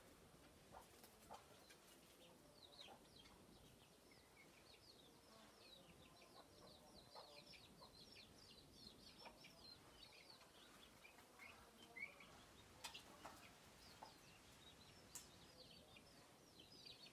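Faint chicken clucking with a long run of quick, high, falling chirps, and a few sharp clicks about three-quarters of the way through.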